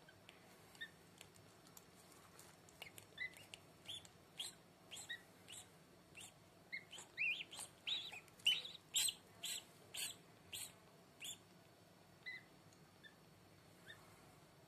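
Newly hatching duckling peeping as it emerges from its shell: a run of short, high peeps, about two a second, loudest and closest together in the middle, sparser near the start and end.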